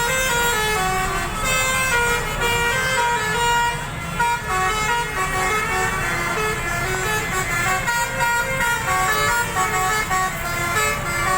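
Multi-tone telolet horn playing a melody: a quick run of stepped notes from several horns sounding together, over a low engine rumble.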